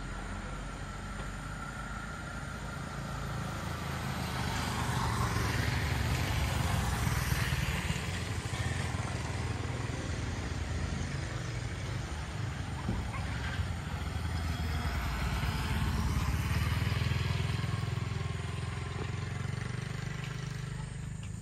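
Motorcycles passing along the road, the engine noise swelling and fading twice over a steady low traffic rumble.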